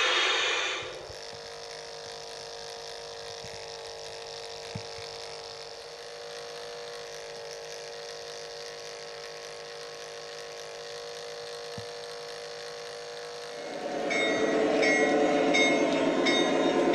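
A faint steady hum, then about 14 seconds in a G-scale model train runs loudly past on close track, its wheels clicking over the rail joints several times a second.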